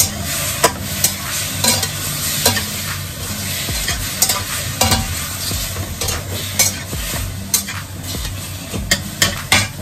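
Food stir-frying in a pan with a steady sizzle while a spatula stirs it, knocking and scraping against the pan in irregular sharp clicks.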